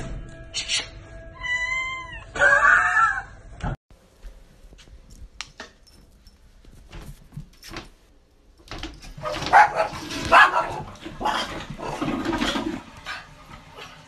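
A cat meowing: a few drawn-out, falling meows close together. After a cut, a loud stretch of rough noise with rapid pulses lasting several seconds.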